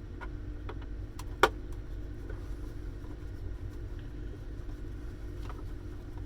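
Scattered light clicks and knocks of plastic and circuit-board parts being handled, with one sharper knock about a second and a half in, over a steady low hum.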